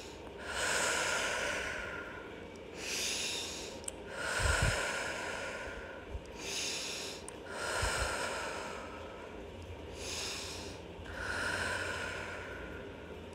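A woman breathing deeply and slowly through the nose close to the microphone, with a steady rhythm of long inhales and exhales, about seven hissy breaths in all, while she holds a seated yoga twist. Two soft low bumps come about a third and two thirds of the way through.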